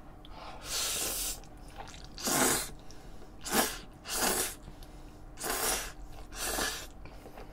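Tomato spaghetti being slurped off chopsticks, six slurps about a second apart.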